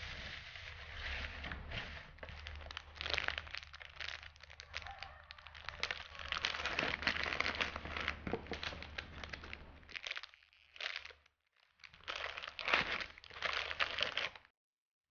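Shredded paper strips crinkling and rustling as they are handled and packed into a cardboard box, with dense little crackles. After a short pause, crinkling plastic wrap as wrapped squishy toys are pushed into the box; it stops just before the end.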